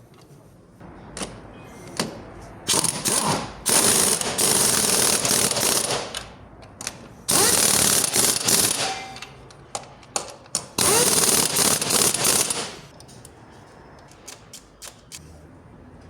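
Power wrench running in four bursts on the bolts of a Honda Fit's upper transmission mount, the first brief and the others one to two seconds each, with tool clicks in between.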